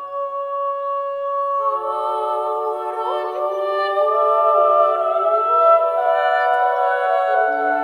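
Music of sustained wordless vocal tones: several notes held together, sliding slowly from one pitch to the next, with more notes joining about a second and a half in.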